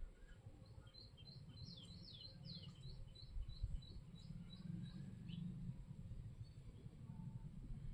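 A bird calling faintly: a quick series of about a dozen short, high chirps, roughly three a second, some sliding down in pitch. Under it runs a low rumble.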